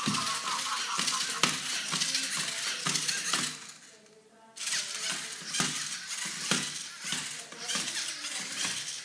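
LEGO Mindstorms robot's motors and plastic parts clattering and clicking as it crawls over a tiled floor, with sharp clicks about twice a second. The rattling stops for under a second about four seconds in, then starts again.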